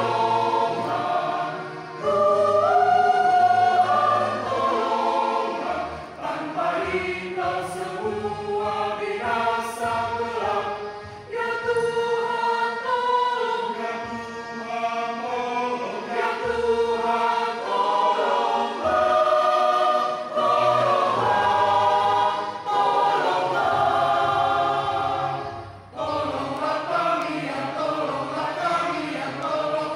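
Mixed choir of men's and women's voices singing a hymn in harmony, in phrases with brief breaks between them.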